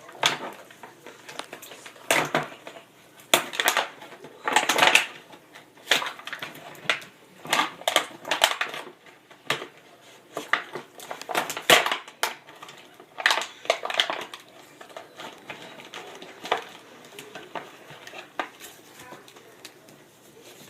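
Irregular clicks, knocks and clatter of hard plastic being handled, such as a Nerf Nanofire toy blaster being worked and loaded, coming in clusters with short pauses.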